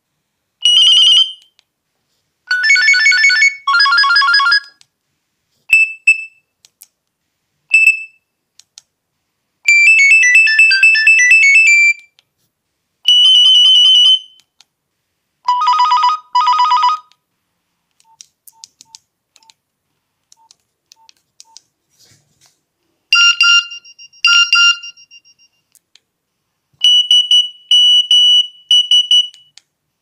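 Nokia 2650 mobile phone's built-in ringtones previewed one after another from its speaker as the ringtone list is scrolled: short electronic melodies of one to two seconds each, with pauses between them. In a quieter stretch there are faint short beeps, and near the end come a few more short alert tones from the message-alert menu.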